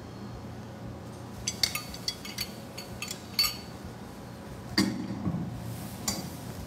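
A spoon clinking against a bowl in a quick run of light clinks, followed by one louder knock.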